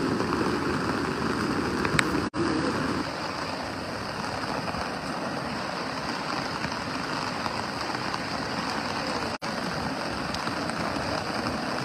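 Heavy rain falling steadily on a street, an even hiss of rain on wet surfaces. The sound cuts out for an instant twice.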